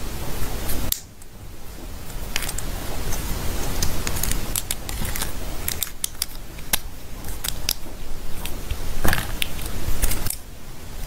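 Small hard-plastic toy parts clicking and tapping as they are handled and pressed together, at irregular intervals over a steady hiss.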